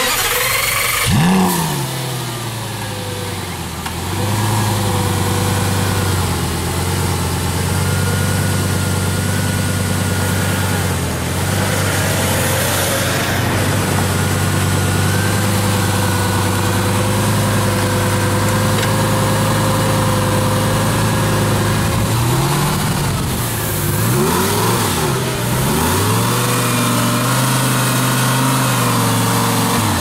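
Lamborghini Gallardo Spyder's V10 running at low speed with a steady drone. It is blipped once about a second in, and revved up and down several times in quick succession near the end.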